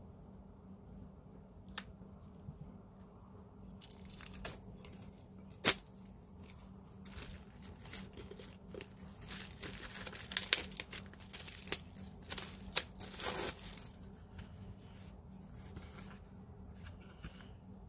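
Plastic shrink wrap on a CD sleeve being cut, torn and crinkled off by hand, in scattered crackly bursts that are busiest in the middle. A single sharp click about six seconds in is the loudest sound.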